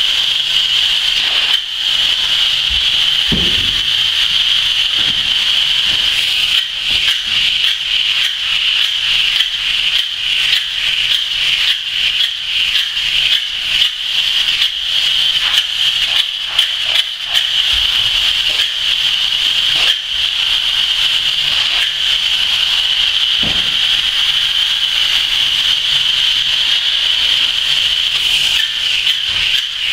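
Spray foam gun spraying two-component polyurethane foam insulation: a loud, steady hiss with a fine crackling, rattling texture and a few short dips. A few dull low thuds sound now and then.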